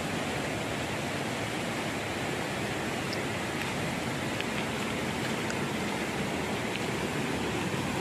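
Small waterfall splashing into a rock pool, a steady even rush of water.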